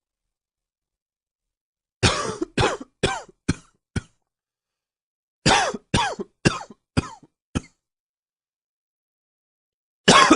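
A man coughing in fits: a run of about five coughs starting about two seconds in, a second run of about five starting near the middle, and another fit beginning at the end. Each run trails off, the coughs getting shorter and weaker.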